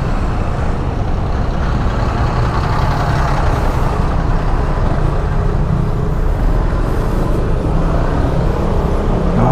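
Steady engine and road noise of a Honda ADV150 scooter riding in heavy traffic, picked up by a helmet-mounted camera, with no sudden sounds standing out.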